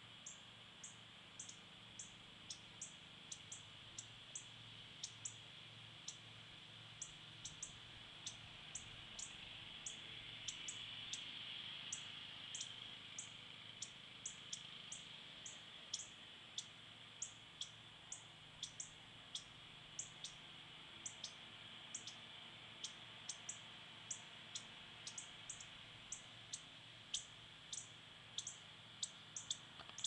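Northern cardinals giving sharp, high chip notes non-stop, about two a second: alarm calls, the birds upset by a cat in the yard.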